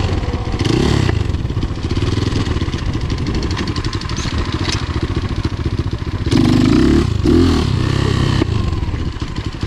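BSE TTR 250 dirt bike's engine running hard under throttle as it is ridden, the revs rising and falling, with its loudest burst of throttle a little past the middle.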